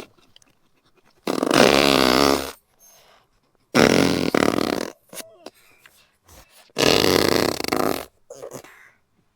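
Fart sound effects: three long, loud farts of about a second each, spaced a couple of seconds apart, with short, quieter sputtering farts between and after them.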